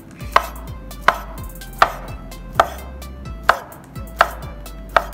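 Chef's knife slicing sausages on a wooden cutting board: seven even knocks of the blade on the board, about one every three-quarters of a second.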